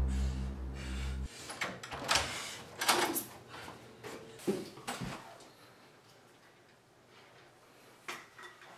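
Background music cuts off about a second in, followed by a string of sharp clicks and knocks from a door and its handle being worked.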